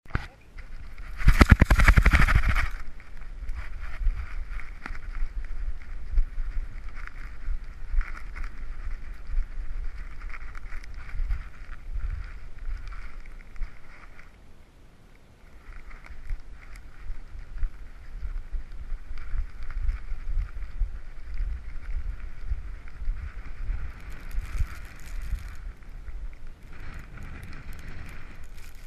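Muffled rubbing, bumping and wind buffeting from a GoPro strapped to a dog's back as the dog moves. There is a loud scuffing burst about two seconds in and a brief lull about halfway.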